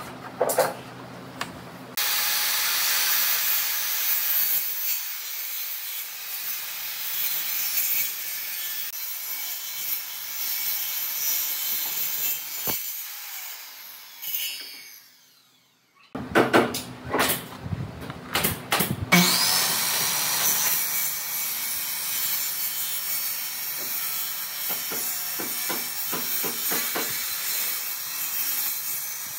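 Maktec handheld circular saw cutting across the ends of a row of wooden slats: a few knocks, then the saw starts suddenly about two seconds in and cuts until it fades out about halfway. After a short break and more knocks, it starts again with a rising whine as the blade spins up, and cuts on to the end.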